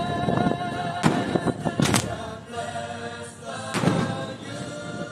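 Show music with long held notes, cut by three loud, sharp reports of display fireworks going off at close range: about a second in, just before the two-second mark, and near four seconds.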